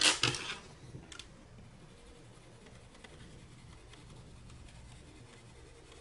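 A short clatter of pencils being handled, the loudest sound, with a smaller click about a second in. Then faint scratching of a white Prismacolor colored pencil burnishing over layered colored pencil on paper.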